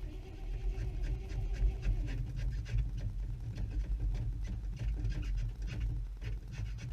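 Dodge engine running just after a cold start, a steady low rumble with quick uneven pulses; a higher tone in it drops away about two seconds in as the idle settles.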